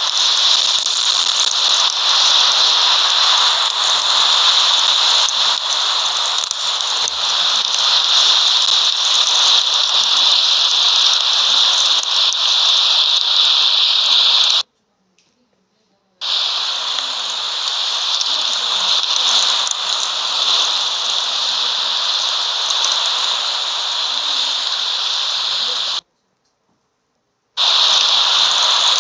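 Steady rushing noise of a snowstorm, wind and driving snow, with no pitched sound in it. It cuts off abruptly to silence twice, for about a second and a half each time, about 15 s and 26 s in.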